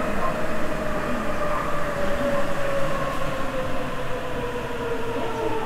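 Sapporo subway Toho Line 9000 series rubber-tyred train heard from inside the car: a steady running rumble with its inverter and traction-motor whine falling steadily in pitch as the train slows for the next station.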